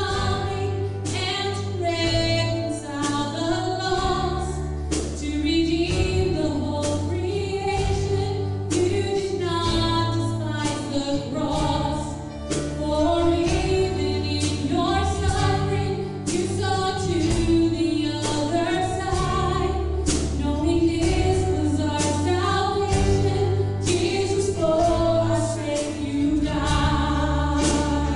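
A worship band playing a song: a woman sings the melody lead, backed by acoustic guitar, keyboard and a second guitar, over sustained bass notes and a steady beat.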